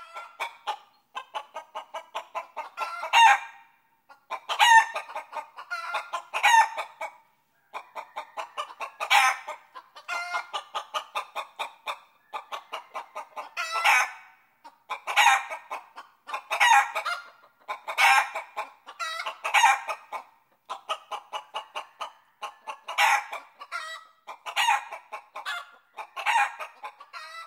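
Chicken clucking in fast runs of short clucks, each run ending in a loud, longer squawk, repeated over and over.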